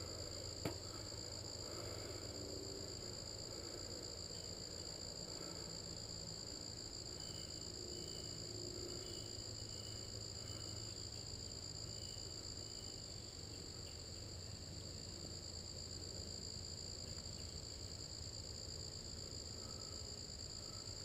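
Steady high-pitched trilling of crickets, unbroken throughout, over a low rumble. There is one sharp knock about a second in.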